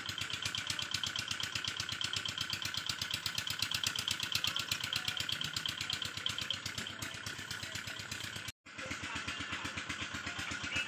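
Small engine running steadily with a fast, even beat, cut off briefly near the end before it resumes.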